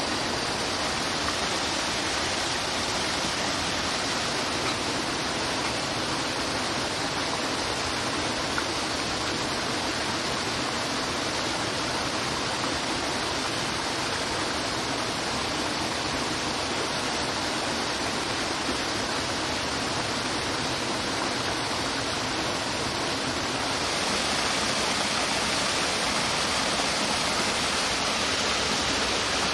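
Steady rush of a stream's flowing water, a little louder near the end.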